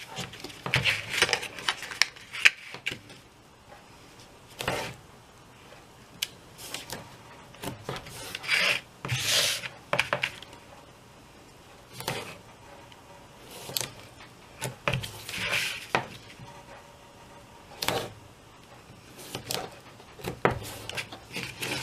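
Two-sided tape being laid and pressed along the edges of a cardstock box template: intermittent paper rustles, rasping rubs and light taps, with the longest rubs about nine seconds in and again around fifteen seconds.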